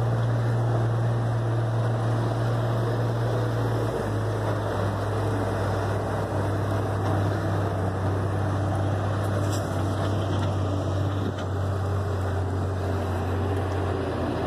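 Heavy diesel engine running at a steady speed, a low steady hum that steps slightly lower in pitch about four seconds in.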